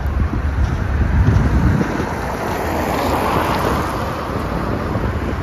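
Wind buffeting the microphone with a heavy, uneven rumble, over the steady hiss of street traffic that swells about halfway through.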